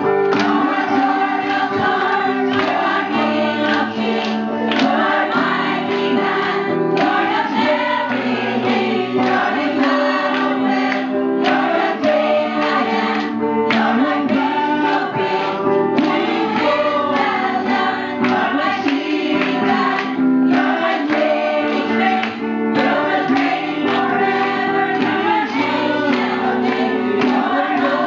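A congregation, mostly women's voices, singing a lively praise and worship song together over instrumental accompaniment with held chords.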